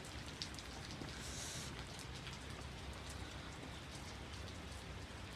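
Steady rain falling, with scattered drops ticking close by and a brief louder hiss a little over a second in.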